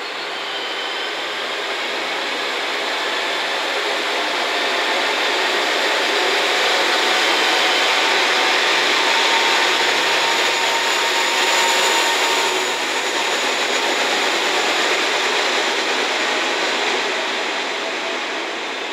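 A three-car KiHa 40-series diesel railcar train (KiHa 40 and KiHa 47 cars) pulls away from the platform and runs past, its diesel engines working under power. The sound grows to its loudest about halfway through as the cars go by, then fades as the train leaves.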